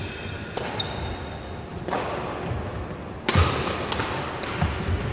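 Badminton rally: sharp knocks of rackets striking the shuttlecock, about five over the stretch, the loudest a little past the middle, each ringing briefly in the hall's echo. A brief high shoe squeak on the wooden court floor early on.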